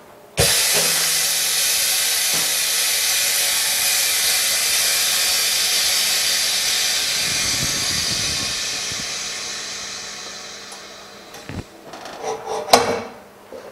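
Compressed air hissing out of a phone-screen bubble-remover pressure chamber as it is vented: a loud hiss that starts suddenly about half a second in, holds steady, then fades away as the pressure drops. Near the end come a click and one sharp knock.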